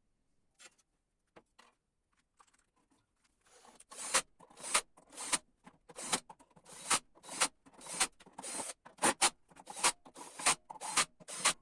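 A run of short scraping strokes: a few faint ones at first, then from about four seconds in a steady series of louder strokes, about two a second.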